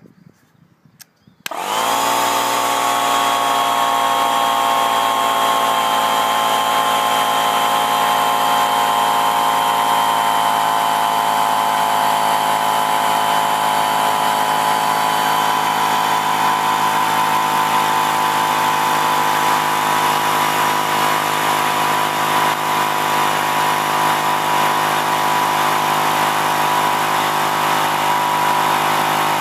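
Fubag oil-free air compressor switched on about a second and a half in, its motor and pump starting abruptly and then running steadily. It is filling the 6-litre tank, building pressure past 6 bar.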